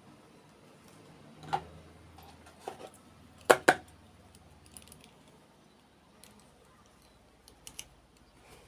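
Scattered sharp clicks and taps of small plastic toy pieces and packaging being handled, the loudest a quick pair about three and a half seconds in, with faint ticks near the end.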